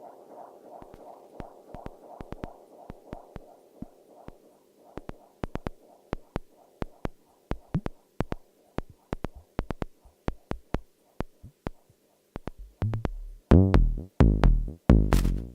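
Eurorack modular synthesizer playing minimal techno: a soft, pulsing synth texture fades out over the first few seconds while a rhythm of sharp clicking percussion builds. About 13 seconds in, a heavy kick drum comes in and becomes the loudest sound.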